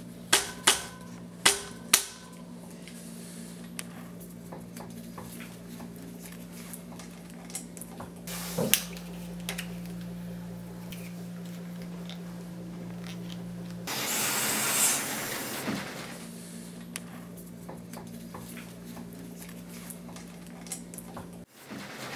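Hand work on a road bicycle in a bike stand: a few sharp clicks at the start, a single knock partway through and a short hiss later on, over a steady low electrical hum that stops suddenly near the end.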